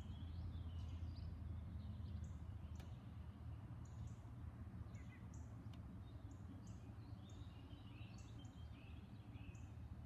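Faint outdoor ambience of several small birds chirping, short calls repeating throughout, over a low steady hum that weakens after about three seconds.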